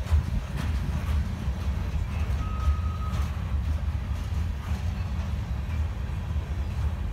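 Freight cars of a CN manifest train rolling past: a steady low rumble of wheels on rail with faint clicks. A short high squeal comes about two and a half seconds in.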